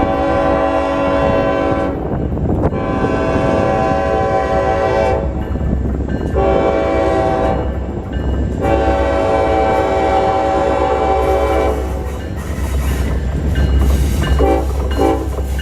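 Diesel locomotive air horn sounding four long blasts of two to three seconds each, the last two nearly run together, played by the engineer as a horn-show salute. Under the horn runs the low rumble of the passing train, which goes on alone after the horn stops near the end.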